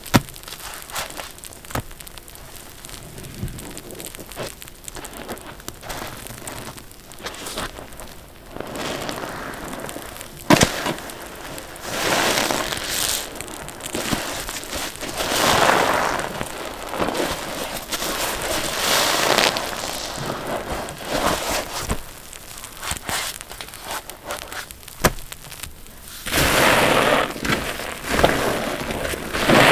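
Wet block sponges squeezed by hand, water pressed out of the foam, in repeated swells of a second or two each with quieter stretches between. A few sharp clicks stand out, near the start, about ten seconds in and about twenty-five seconds in.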